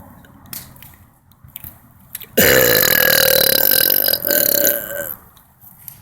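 A single long, loud burp starting about two and a half seconds in and lasting nearly three seconds, with a brief dip near the end before it trails off.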